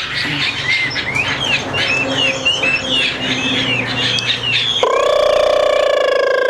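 Caged Chinese hwamei (Garrulax canorus) chirping and calling in quick, short whistled notes. About five seconds in, a loud, long, steady tone, slowly falling in pitch, starts suddenly and drowns them out.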